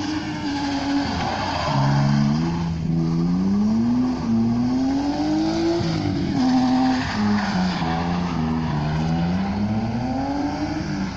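Car engine revving hard during a drift, its pitch climbing and then dropping back several times as the throttle is worked, over the noise of the tyres sliding on wet asphalt.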